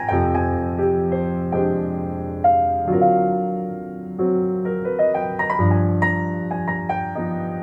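Solo piano playing slow, sustained chords in an instrumental break of a jazz ballad, a new chord every second or so, reproduced through Yamaha NS-1 classic loudspeakers.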